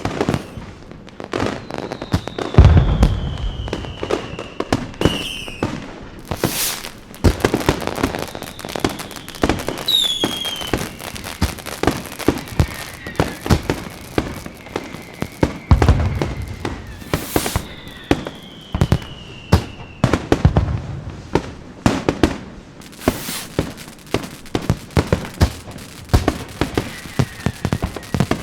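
Fireworks going off in a dense run of sharp pops and crackles, with two deep booms, about three seconds in and about sixteen seconds in. Several whistles falling in pitch sound among the bangs.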